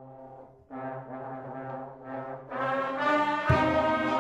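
Brass band music: soft held chords that swell to full, loud playing about two and a half seconds in, with a low thump soon after.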